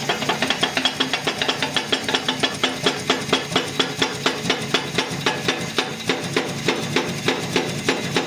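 Hammer tapping metal with rapid, even blows, a few per second, each with a ringing note: a new double bearing being driven into a manual gearbox.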